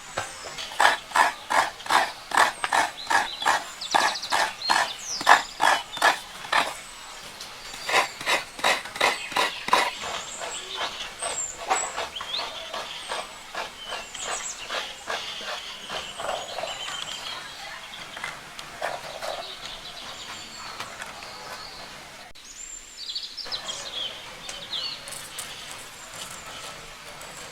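Two runs of rhythmic knocks, about three a second, from food being chopped by hand; afterwards birds chirping.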